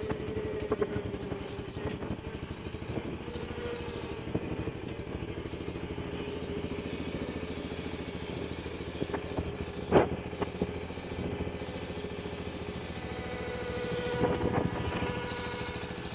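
John Deere 140 garden tractor's single-cylinder Kohler engine running steadily while the tractor is driven slowly. It briefly gets louder about fourteen seconds in, and a single sharp clank is heard about ten seconds in.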